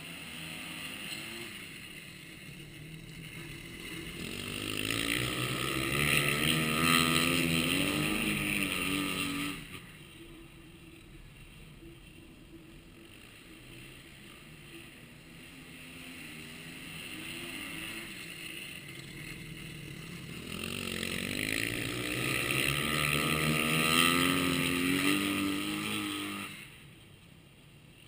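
Kawasaki dirt-track motorcycle lapping a shale oval, passing twice: each time the engine note grows louder and wavers up and down with the throttle through the bend, then drops away suddenly as the bike goes by. Between the passes the engine is heard faintly across the track.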